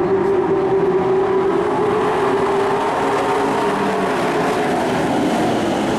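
Engines of racing trucks running at speed on a dirt oval, a loud steady drone whose strongest note fades after about three seconds as the trucks pass.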